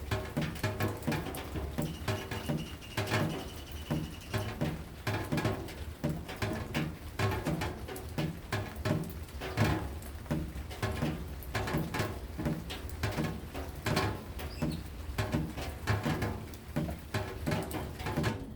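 Rain pattering: a dense, uneven run of drops tapping, many of them giving a short low pitched note. A faint thin high tone sounds briefly about two seconds in.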